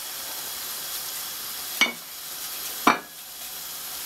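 Fish fillets and egg noodles sizzling steadily in oil and stock in a wok, with two sharp clicks of wooden chopsticks against the pan, about two and three seconds in.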